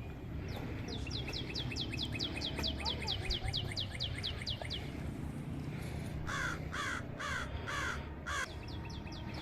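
Wild birds calling in forest: one bird repeats a quick series of high, falling notes, about five a second, for roughly four seconds. Later five louder, harsh calls follow, and the quick high series starts again near the end.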